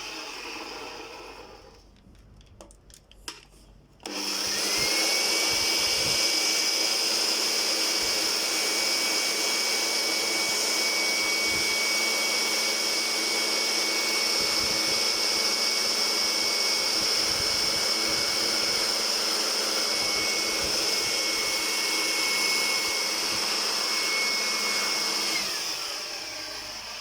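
Handheld electric air blower switched on about four seconds in and running steadily with a high motor whine, blowing dog hair out of a fan motor. Near the end it is switched off and the whine falls away as it spins down. Before it starts there are only a few light clicks.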